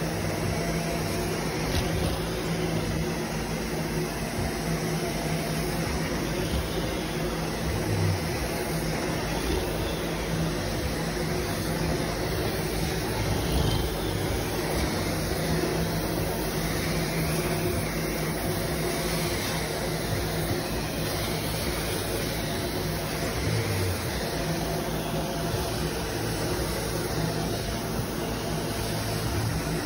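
Carpet extraction wand drawing water out of soiled commercial carpet: the steady rush of the extractor's vacuum suction with a low machine hum underneath, unbroken as the wand sweeps back and forth.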